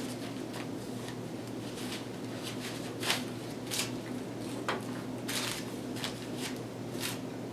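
Eating a chicken sandwich: a scattering of short, sharp mouth and handling noises from chewing and biting, over a steady low hum.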